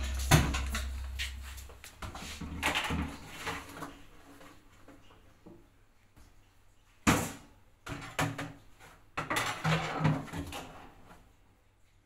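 Knocks and plastic clatter from handling a Beko front-loading washing machine. The first loud clunk comes just after the start, with its detergent drawer pulled out, and there is a sharp knock about seven seconds in. A low hum stops about two seconds in.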